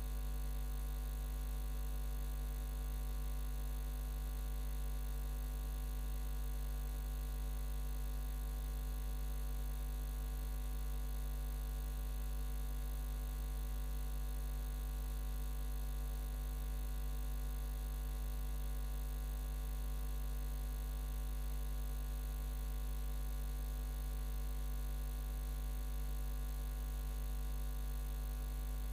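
Steady electrical mains hum with a buzzing edge, one low pitch and its overtones, unchanging throughout.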